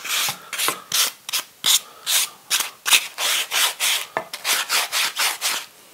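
Hand sanding with an abrasive block along the edges of melamine-faced chipboard, in quick back-and-forth strokes at about three a second. This is a light fine sanding to take off the small burrs left on the cut edges.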